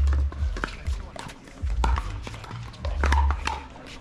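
Pickleball paddles hitting the plastic ball in rallies, a run of sharp hollow pops and clicks several times a second, over bursts of low rumble that come and go.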